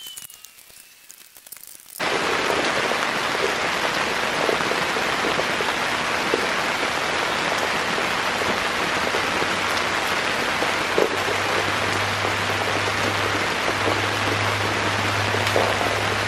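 Steady rain, a dense even hiss that starts suddenly about two seconds in, with a few faint ticks. A low steady hum joins it from about ten seconds in.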